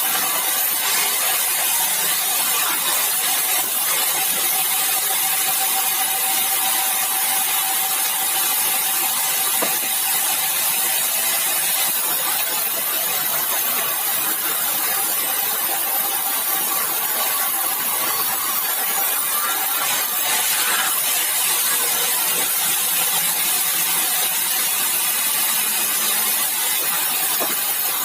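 Sawmill saw running steadily through bengkirai hardwood, a constant high noise with a faint whine that holds for several seconds at a time.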